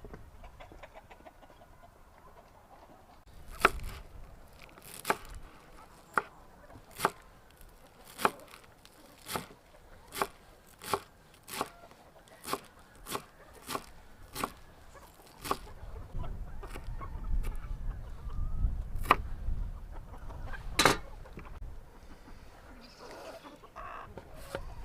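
Chickens clucking, with a run of sharp knocks about once a second.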